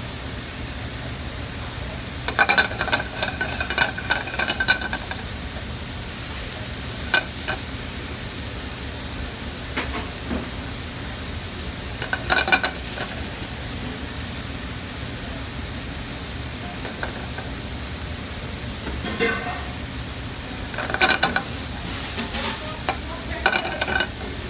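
Shallots and sliced mushrooms sautéing in butter in a stainless steel skillet on a gas burner, with a steady sizzle. Short clusters of metallic clinks and scrapes of a utensil against the pan come several times, as the mushrooms are stirred.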